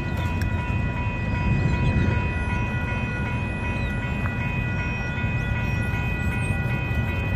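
Railroad crossing warning bells ringing steadily, over the low rumble of an approaching Union Pacific manifest freight train.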